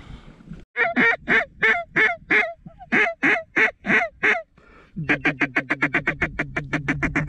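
Honking waterfowl calls: about a dozen separate notes, then after a short pause a fast, even run of notes about six a second.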